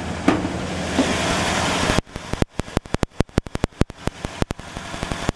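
1960 Pontiac Catalina's 389 V8 idling fast with the choke set, warming up after a cold start. About two seconds in, the steady hum changes abruptly to a choppy run of separate pulses, about eight a second.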